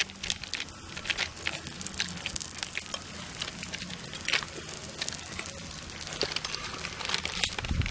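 Thin plastic sheet crinkling and rustling under the fingers as a stuffed puran poli dough ball is pressed and patted flat on it, in a steady run of small crackles.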